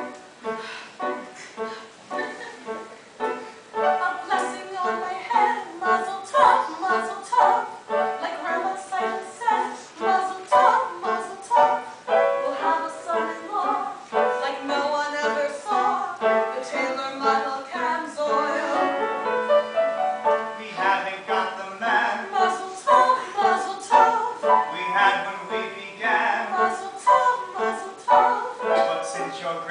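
Singing voices performing a musical-theatre number with piano accompaniment, the sung lines moving over steady piano chords.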